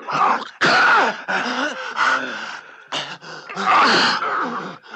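A person's wordless vocal sounds: several loud cries and breathy outbursts in quick succession, with no clear words.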